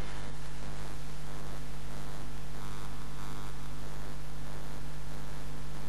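A steady low hum with an even hiss under it, unchanging throughout.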